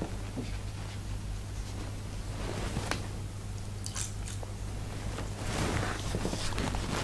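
Small clicks and light rustles of cosmetic items and cotton pads being handled, then a damp cotton pad rubbing across the skin of the face near the end to wipe off a scrub. A steady low hum runs underneath.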